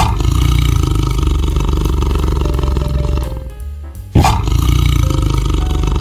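A large animal roaring twice, each roar long and drawn out with a deep rumble, the second beginning about four seconds in.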